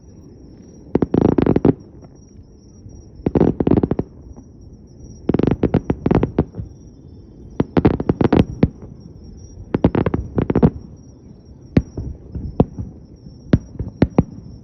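Fireworks display: five quick volleys of rapid crackling bangs, about two seconds apart, followed by single sharp bangs near the end.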